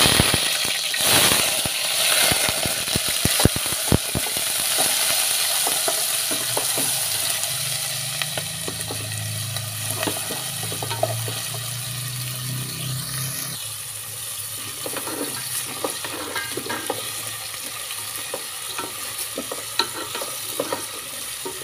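Pounded onion, garlic, ginger, chilli and lemongrass paste hitting hot oil in a metal pot: a sudden loud sizzle that slowly dies down as it fries until fragrant, with the scrape and knock of a wooden spatula stirring it.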